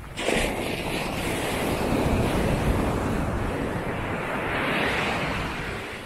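Surf breaking on a sandy beach: a sudden rush of noise as a wave breaks, swelling again as the water washes up the shore, then fading near the end.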